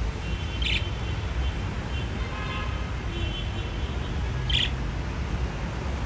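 Budgerigars chirping and warbling: a short sharp chirp about a second in and another near the end, with soft warbling chatter between them. A steady low rumble runs underneath.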